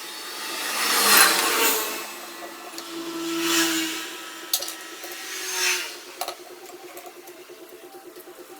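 Transmission parts being worked apart by hand: three swells of scraping and rubbing of metal parts, with a few light clicks.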